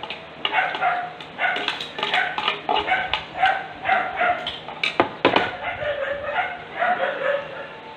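A dog barking over and over, about two barks a second, with two sharp knocks about five seconds in.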